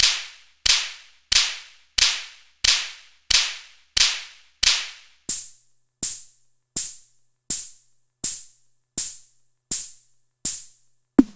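Home-built analog synthesizer playing a steady repeating percussive noise hit, about three every two seconds, each with a sharp attack and a quick decay. About halfway through, each hit thins to a bright, high hiss, and near the end a short lower thump takes over.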